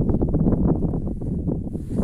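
Wind buffeting the microphone: a low rumble broken by rapid short crackles.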